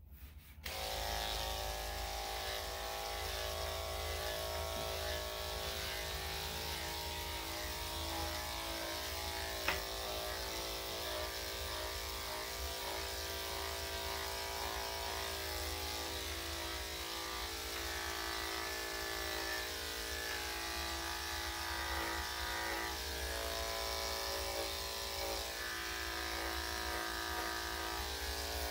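Electric dog-grooming clippers, with a blade just swapped in, switch on about half a second in and run with a steady hum while shaving a Yorkshire terrier's coat. One brief click comes about ten seconds in.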